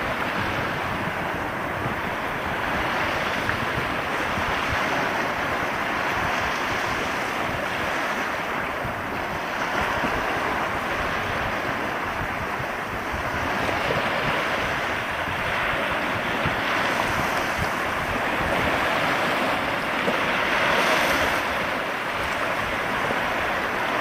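Small sea waves breaking and washing over a low, seaweed-covered rock shelf, a continuous surf that swells every few seconds as each wave comes in.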